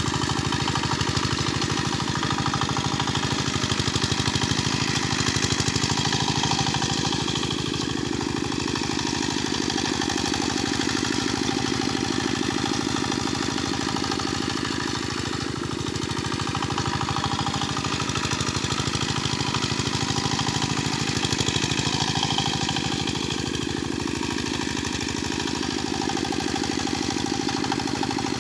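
Single-cylinder engine of a mini walk-behind tractor running steadily while it pulls a harrow through a flooded rice paddy, with a fast even chugging that swells and eases a little as it works.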